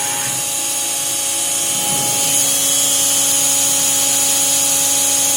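CNC milling machine spindle running at 8,000 RPM, a steady high whine. About two seconds in, a lower hum joins and the sound gets slightly louder as the program starts moving.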